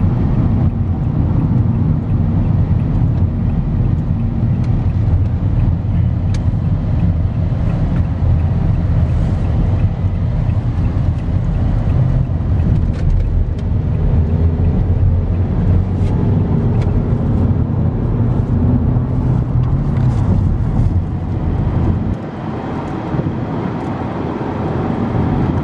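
Road noise inside a moving car's cabin at highway speed: a steady low rumble of tyres and engine. It eases slightly for the last few seconds.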